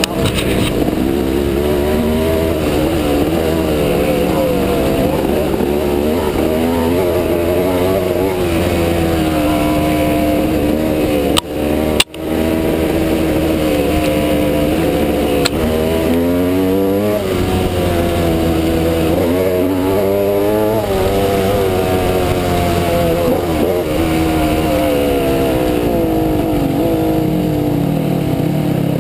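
Off-road dirt bike engine running under way on a rough trail, revs rising and falling constantly with the throttle. The sound drops out sharply twice, briefly, about twelve seconds in.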